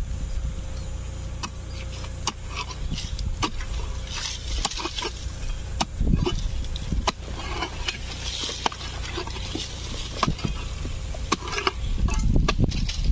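Digging into a snake burrow with a long-handled spade: irregular scrapes, knocks and crackles as the blade works through dry soil, roots and twigs, with earth being pushed and tossed aside.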